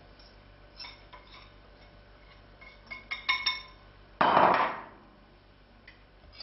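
A wire whisk clinks and taps against a small bowl as vanilla powder is scraped out of it into a saucepan of milk and cream, a quick cluster of clinks about three seconds in. Just after four seconds comes a louder, brief scraping clatter as the bowl is put down on the counter.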